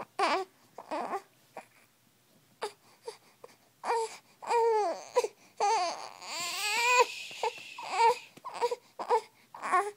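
A young infant fussing and crying: short whimpering cries at first, swelling into longer wavering wails about halfway through, with a strained, harsher cry around two-thirds in, then short cries again near the end. He is fussing after losing his thumb from his mouth.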